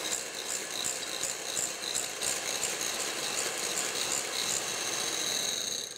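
Electric hand mixer running, its twin beaters whirring in a glass bowl of chocolate and cream cheese mixture, with a high whine that pulses at first and then holds steady. It is switched off at the very end.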